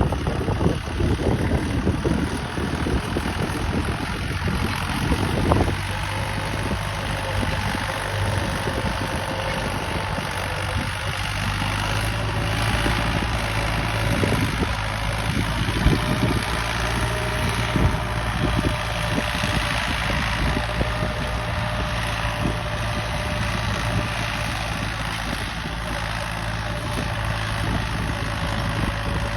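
Al-Ghazi tractor's diesel engine running, louder and rougher for the first few seconds, then steady.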